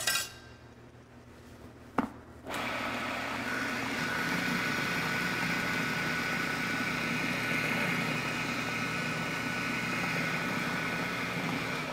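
Food processor pureeing boiled parsnips with a little of their cooking liquid into a rough mash. It is switched on with a click about two seconds in, then runs with a steady whir and stops at the end.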